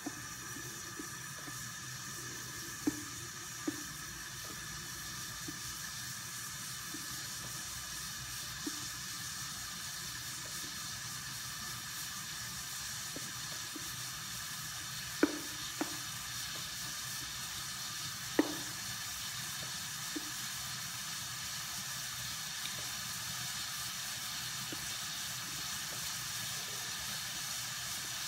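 Water with herbs heating in a granite-coated pot on a gas burner: a steady hiss that slowly grows louder. A few sharp ticks and pops break it, the strongest a little past halfway.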